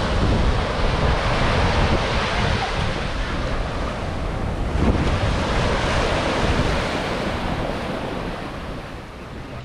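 Waves washing with wind on the microphone: a steady rushing noise that swells and eases slowly, fading a little near the end.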